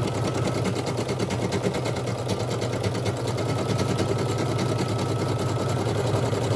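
Brother SE1900 embroidery machine stitching lettering at speed: a rapid, even needle rhythm over a steady motor hum.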